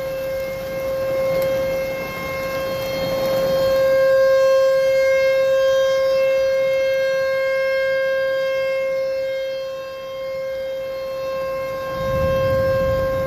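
American Signal T-128 rotating tornado siren sounding a steady, unwavering tone for a tornado warning, its loudness slowly swelling and fading as the siren head turns. A low rumble rises near the end.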